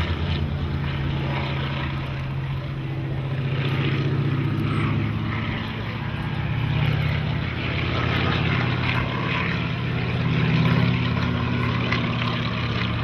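PZL-106 AR Kruk's seven-cylinder radial engine and propeller running at power overhead, the drone swelling and easing in loudness a few times as the aircraft banks and turns.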